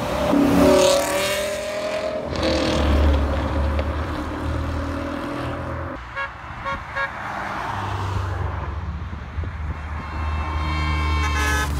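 A BMW E60 M5's V10 revs loudly as the car drives past, its pitch rising and falling, then settles into a steady low rumble. Later comes a line of BMWs driving past, with three short horn toots about six seconds in.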